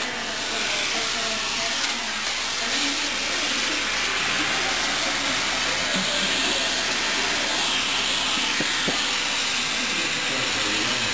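Handheld vacuum cleaner running steadily, a constant hiss of rushing air.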